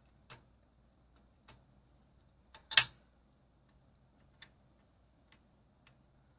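Scattered sharp clicks and taps of hand-work with a screwdriver and cord wires at a screw terminal block, about six in all, the loudest a quick double click near the middle, over a faint low hum.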